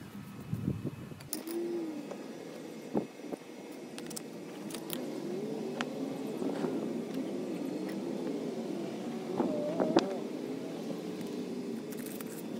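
Concrete paver stones clacking and knocking as they are pried out and set aside: a handful of sharp clacks, the loudest about ten seconds in. Behind them runs a steady distant engine drone that wavers in pitch.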